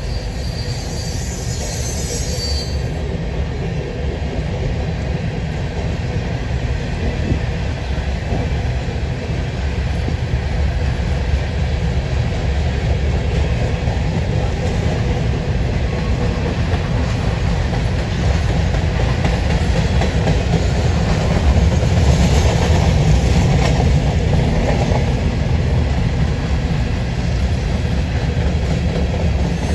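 Covered hopper cars of a freight train rolling past: a steady, loud low rumble of steel wheels on rail that grows slightly louder, with a high wheel squeal fading out in the first couple of seconds.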